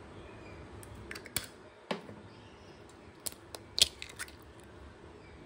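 Eggshells cracking and being pulled apart by hand: a few short, sharp clicks and cracks, the loudest about four seconds in as the second egg is split open.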